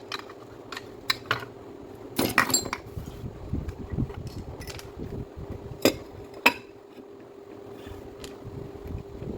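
Scattered clinks and knocks of small metal parts and tools being handled, the loudest about two, six and six and a half seconds in, over a steady hum.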